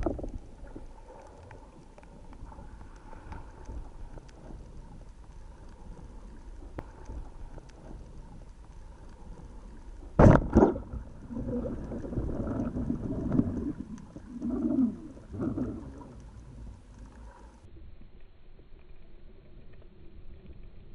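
Muffled underwater sound picked up through an action camera's waterproof housing: a low, steady rumble of moving water, with a sharp knock at the start and a louder double knock about ten seconds in, followed by a few seconds of uneven muffled bursts.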